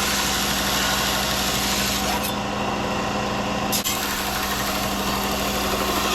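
Power sander running steadily on a steel knife blade: a constant motor hum under the hiss of abrasive on metal, the hiss easing briefly about halfway through.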